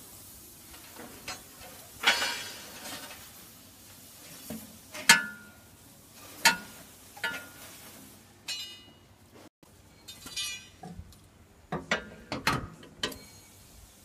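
Steel baling wire being threaded through the slots of a vertical baler's steel chamber, clinking and scraping against the frame: irregular sharp metallic clicks, a few ringing briefly, and short rasps, with a cluster of clicks near the end.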